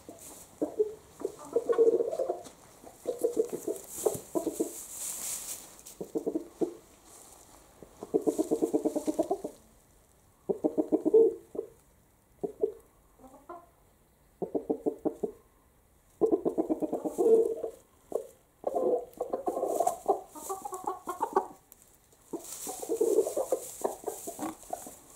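Chickens clucking in repeated bouts of rapid low clucks, each about a second long, with short pauses between.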